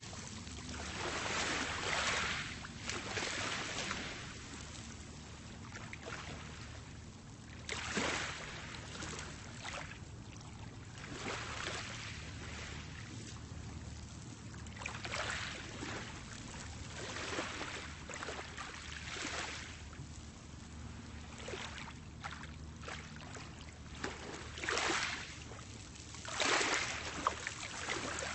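Small, calm sea waves washing onto a pebble beach: a steady low wash with irregular surges every few seconds as the water breaks and rattles through the pebbles.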